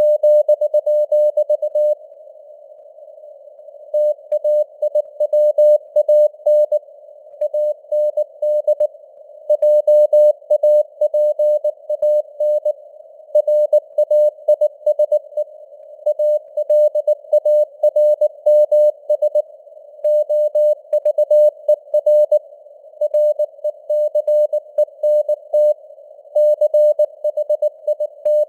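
Morse code (CW) at 19 words per minute: a single steady mid-pitched tone keyed on and off in dots and dashes, with short pauses between words. It sits over a narrow band of simulated radio hiss, and the signal strength fades up and down (QSB).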